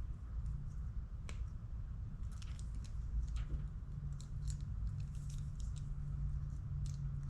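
Scattered small clicks and snips of hand tools working harness wires, stripping them and crimping terminals onto them, over a steady low hum.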